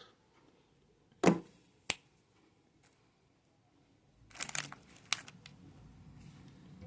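A plastic snack wrapper is torn and crinkled. There is one sharp snap, then a click, and after a short pause a run of crinkling.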